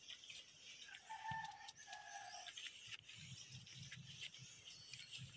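Near silence: faint clicks and rustling of a handheld phone being moved through fern undergrowth, with a faint distant held call about a second in.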